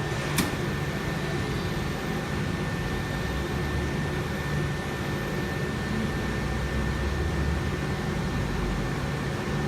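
Steady drone of running machinery: a low rumble with a thin, steady high whine, and one sharp click shortly after the start.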